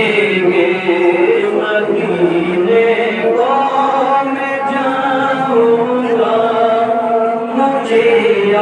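A man chanting an Urdu naat solo into a microphone, without instruments, drawing out long held notes that glide slowly up and down.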